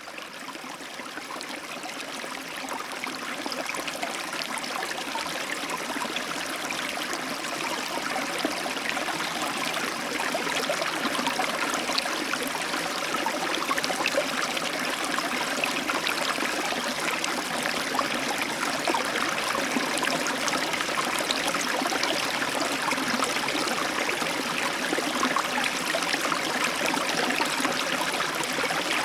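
Small river's water running steadily over its bed, an even rushing babble; it fades in over the first several seconds and then holds steady.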